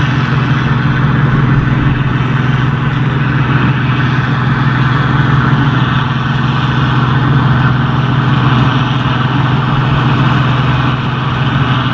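Large diesel engine of harvest machinery running at a constant speed, a loud, steady drone.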